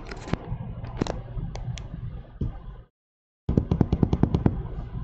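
Scattered light clicks and taps over a steady low hum, cutting out completely for about half a second near the three-second mark, then a quick run of about ten clicks.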